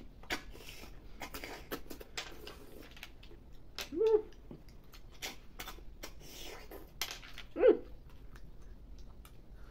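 Eating sounds of cooked snails being sucked out of their shells: a run of wet sucks, smacks and clicks of shells, with a short hum twice, about four seconds in and near the end.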